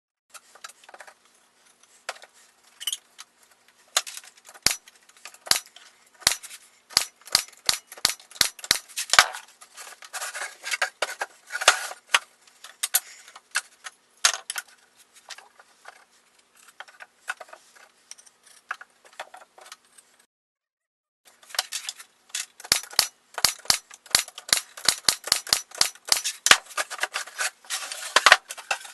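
Pallet-wood slats knocking and clacking together as they are handled and fitted onto a wooden crate: a quick, irregular run of sharp taps and clicks, broken by about a second of silence two-thirds of the way through.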